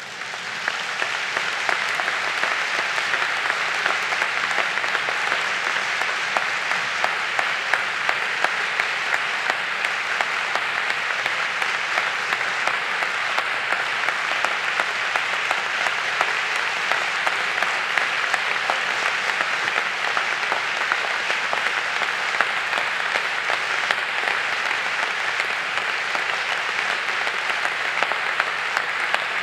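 A large audience applauding, swelling over the first second and then holding steady.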